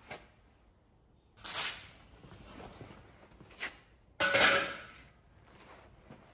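Steel trivet frame and its chain-hung fire pan knocking against a metal work table as it is handled and set upright: a few separate metal clanks, the loudest about four seconds in with a short ring.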